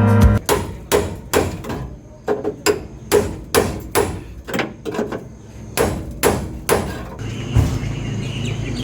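Hammer striking sheet metal on the car's bodywork, about two blows a second, some ringing briefly. A steady low hum takes over near the end.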